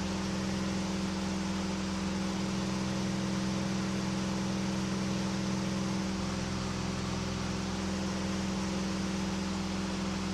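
Single-engine KR2 light airplane in cruise flight, its engine and propeller droning steadily at about 2,500 RPM, heard from inside the cockpit as a constant hum with rushing air noise.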